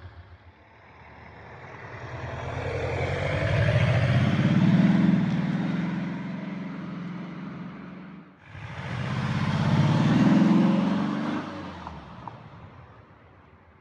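Volvo SUV with a HEICO Selected Sound sport exhaust in its sporty setting, accelerating away twice: the exhaust note swells to a peak and fades, then after an abrupt cut a second run swells and fades out.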